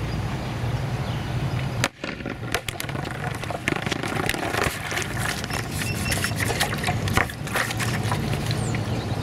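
Steady low rumble with a sharp knock about two seconds in, then many scattered clicks and knocks as the hard plastic, water-weighted Tuggo ball is handled on asphalt.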